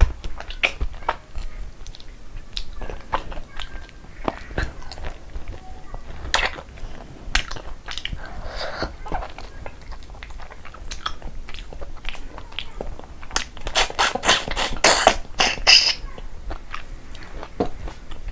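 A person chewing and biting food close to the microphone, with scattered wet mouth clicks. About three-quarters of the way through comes a run of louder, rapid crunching bites lasting a couple of seconds.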